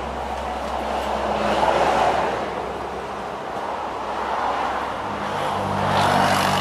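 Road traffic going by: vehicle noise swelling and fading as cars pass, with a steady engine hum coming up about five seconds in.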